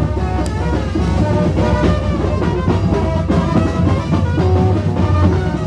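Procession music with drumming and a melody of held notes played over it.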